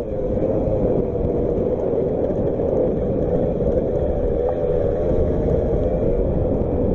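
Motocross bike engine running at fairly steady revs, its pitch wavering up and down a little, over a low rumble.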